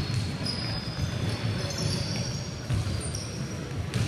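Basketball being dribbled on a wooden gym floor, with players' running footsteps and short, high squeaks of sneakers on the court.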